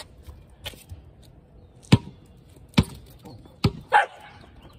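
A series of sharp slaps or knocks at a steady pace of about one a second, then a longer, rougher burst a little before the end.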